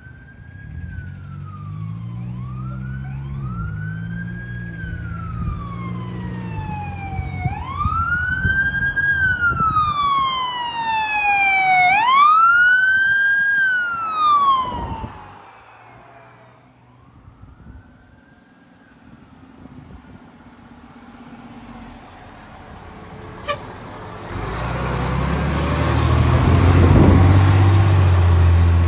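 A fire department car's electronic siren in wail mode, slowly rising and falling in pitch, growing louder to a peak and then fading away as the car passes. Near the end a fire engine's diesel engine rumbles loudly past.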